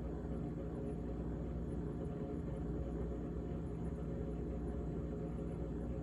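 GE GTH18XCTZRBB refrigerator running with a steady hum and a continuous rattle from its evaporator fan.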